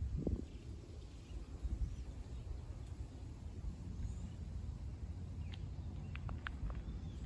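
Outdoor ambience: a steady low rumble, with a few short, faint bird chirps near the end.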